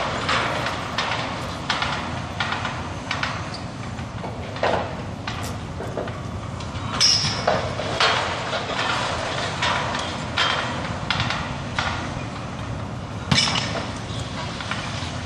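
Building demolition work: a steady low rumble of heavy machinery with irregular clanks and knocks, the loudest clangs about halfway through and again near the end.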